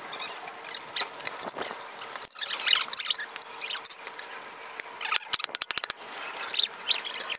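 Fast-forwarded sound of a burning plastic toy helicopter crackling, then a metal shovel scraping its charred remains across concrete, with a quick run of clicks about five seconds in. The speed-up leaves it high-pitched and chirpy.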